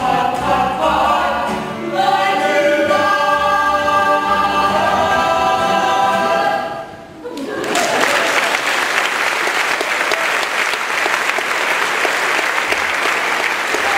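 Youth choir singing the end of a song, closing on a held chord that cuts off about seven seconds in. An audience then applauds steadily for the rest of the time.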